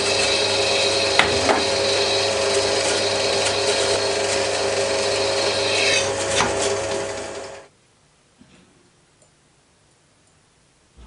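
Drill press running steadily as a small twist drill bores into a cast aluminium part, with a couple of sharp clicks early in the drilling. It cuts off suddenly about three-quarters of the way through, leaving only a few faint knocks.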